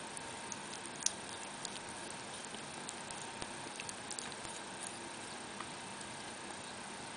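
A ferret licking and smacking watered-down food from a feeding syringe: irregular small wet clicks, the sharpest about a second in, over a steady background hiss.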